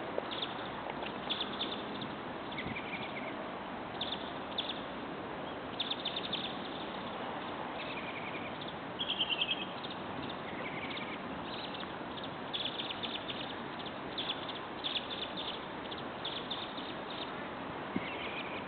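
Birds chirping and calling again and again, short high chirps with now and then a brief whistled note, over a steady hiss of outdoor background noise.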